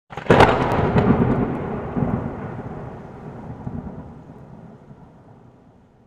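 Thunderclap sound effect: a sudden sharp crack a moment in, then a long rumble that slowly fades away.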